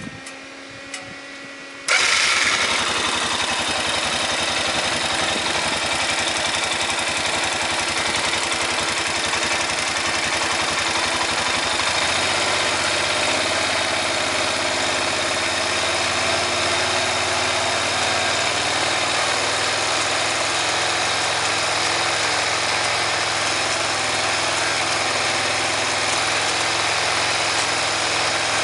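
2005 Honda Rincon ATV's single-cylinder engine starting about two seconds in, then idling steadily, its idle note shifting slightly about twelve seconds in.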